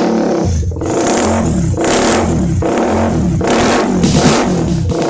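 Loud, bass-heavy electronic sound-check music played through a large sound system, with a repeating pulse and sweeping synth sounds that resemble an engine revving.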